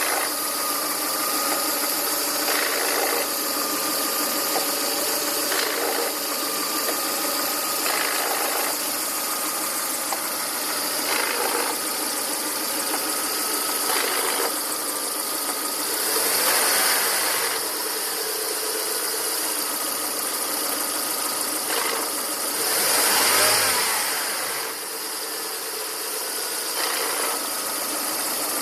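1.8-litre petrol engine of a 2000 Volvo S40/V40 idling with a rasping noise, with short swells every couple of seconds and two louder surges in the second half. The owner does not know what is causing the rasp at idle.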